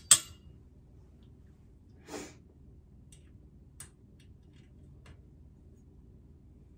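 A sharp click from the dresser's metal frame parts being handled, a short breath about two seconds in, then a few faint ticks as a screw is worked into the frame joint.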